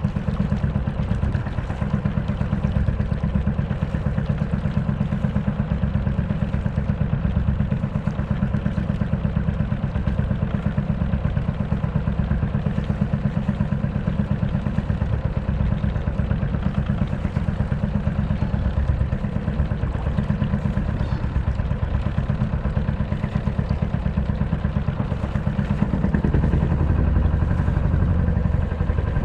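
Sailboat's inboard diesel engine running steadily with a fast, even low beat, a little louder near the end.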